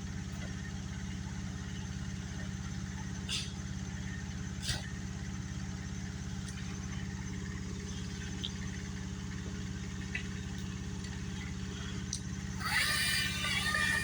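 An engine runs steadily with a low, even hum, and two sharp knocks sound about three and a half and four and a half seconds in. Near the end a louder, higher-pitched sound joins it.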